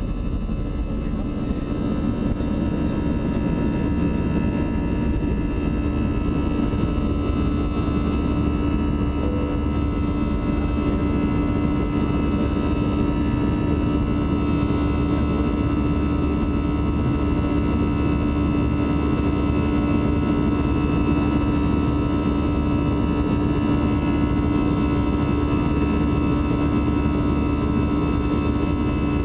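Airbus A320's jet engines at takeoff thrust, heard from inside the cabin: a steady roar carrying several droning tones, the buzzsaw noise of the engine fan at full power, running on through the takeoff roll and initial climb.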